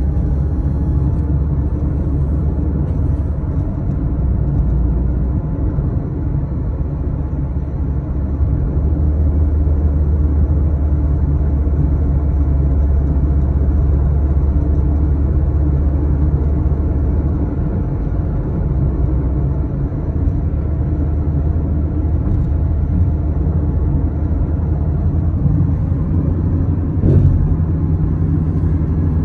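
Road and engine noise heard from inside a moving car: a steady low rumble, with one brief knock near the end.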